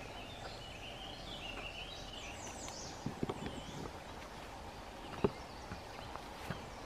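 Footsteps crunching on dry leaf litter on a forest trail, with a sharp snap about five seconds in. A bird sings in high chirps through the middle.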